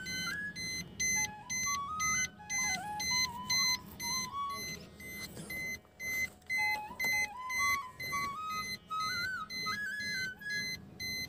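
A car's key-in-ignition reminder chime, beeping with evenly spaced high electronic beeps. A simple stepped melody plays over it.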